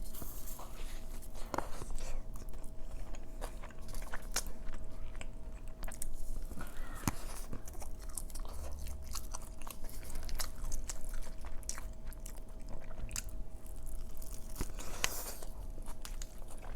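A person chewing and biting into a soft, soggy fish taco close to the microphone: wet, smacking mouth sounds with scattered sharp clicks.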